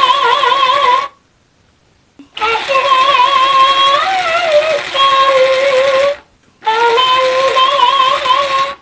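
Talking mimic plush dog toy singing back a song in a high-pitched voice: three long, wavering sung lines with short gaps between them.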